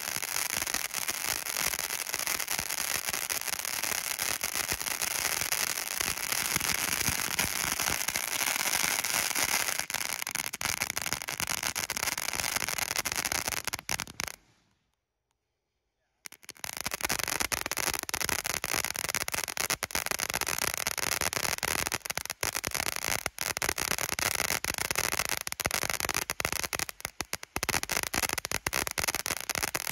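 Phantom Fireworks Funky Monkey ground fountain burning: a steady spraying hiss with dense crackling. The sound cuts out completely for about two seconds midway, then the hiss and crackle return, with sharper separate crackles in the later part.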